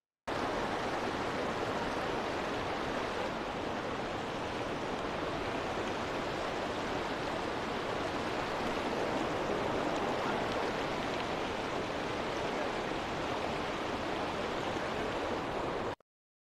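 Small mountain stream rushing over boulders: a steady rush of water that cuts off abruptly near the end.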